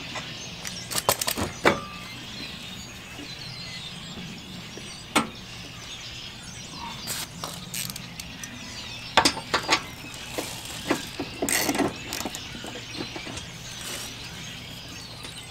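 Ratchet wrench on a long socket extension clicking in several short runs, with scattered metal clinks, as bolts on the bumper guard's mounting bracket are tightened.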